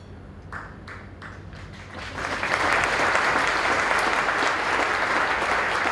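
Audience applauding: a few scattered claps at first, then full applause from about two seconds in.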